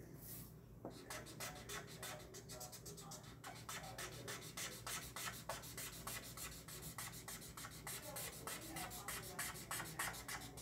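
A marker scribbling on paper, colouring in with quick back-and-forth strokes. The strokes become faster and denser after the first few seconds.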